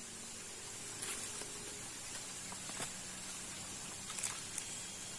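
A few short, faint taps and rustles of a small freshly caught fish being handled and unhooked on the line, heard over a steady outdoor hiss.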